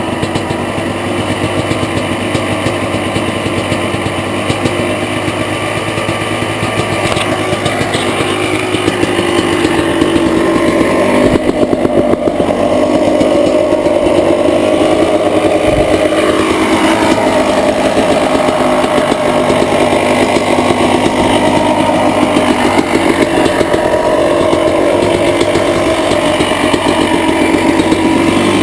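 Honda CR250R's single-cylinder two-stroke engine running with a rapid, raspy firing note, its pitch rising and falling with the throttle. It grows louder about ten seconds in, with a clear drop and rise in pitch about two-thirds of the way through.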